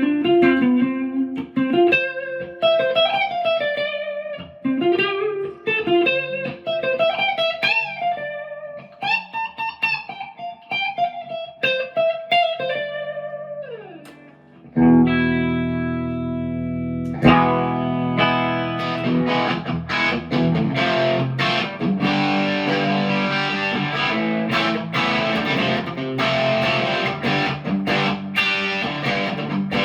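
PRS McCarty 594 Hollowbody II electric guitar played through a Marshall DSL40C amp: a single-note melodic lead line with string bends, ending in a slide down. About halfway through, a full chord rings out, followed by rhythmic strummed chords.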